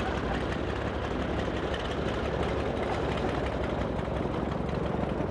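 Boat engine running steadily, a low rumble under a noisy hiss.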